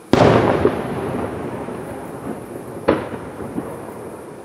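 Aerial firework shell bursting with a loud boom that rumbles away over the next few seconds, then a second, smaller bang about three seconds in.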